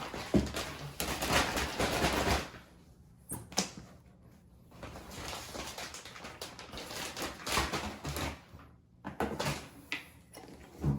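Packaging being pulled off a coffee grinder: stretches of rustling broken by a quiet stretch, with scattered light knocks and clicks from handling.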